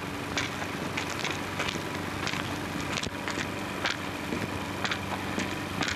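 Surface noise of a 1930s optical film soundtrack: steady hiss and low hum with irregular crackles and pops.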